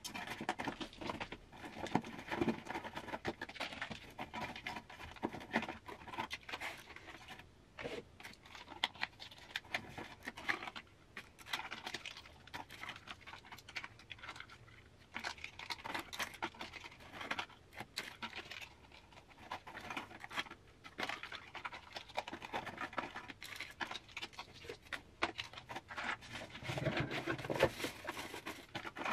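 Makeup products being sorted by hand and put into a basket: an irregular run of light clicks, taps and rustles as lipsticks, liners and palettes knock together and are set down.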